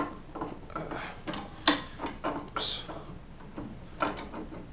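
Sharp metallic clanks and knocks as a bench vise is tightened on a motorcycle fork's lower leg. There are four main ones, the loudest a little under two seconds in.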